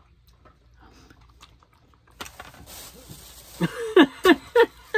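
Faint chewing, then a thin plastic bag crinkling from about two seconds in as a person gags into it after a bite of sardine in mustard sauce, with loud bursts of laughter in the last second and a half.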